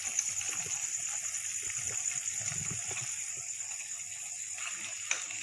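Thick sauce bubbling in a wok while a wooden spatula stirs it, with a single sharp tap near the end.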